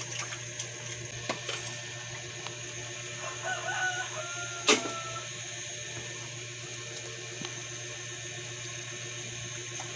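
Wooden spoon stirring a thick cream sauce in a nonstick pan over a steady low hum, with one sharp knock just before the middle. A faint call rises and falls in the background just before the knock.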